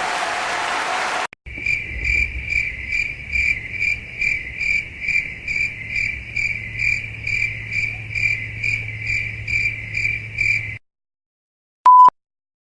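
Cricket chirping sound effect: a steady, rhythmic high chirp repeating about two and a half times a second for roughly nine seconds. It begins after the tail of crowd applause and cuts off abruptly. Near the end comes a single short high beep.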